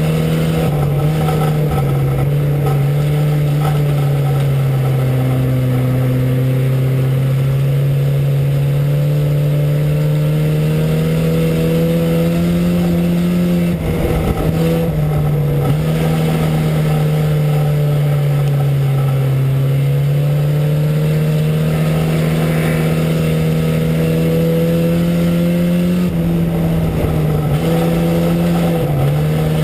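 Four-cylinder engine of an IMCA Sport Compact dirt-track race car running hard, heard from inside the cockpit. Its pitch rises and falls as the car laps, easing off briefly about 14 seconds in and again near the end.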